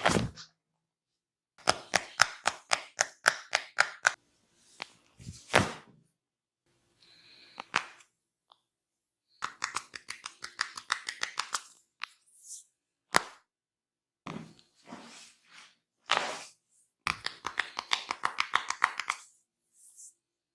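Hair cracking during a barber's head massage: runs of quick sharp snaps, about five a second, each lasting a few seconds, come three times. Between them are a few single, louder cracks.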